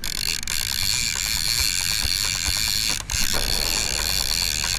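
Conventional fishing reel being cranked, its gears ticking in a rapid, even train as line is wound in, with a short pause about three seconds in.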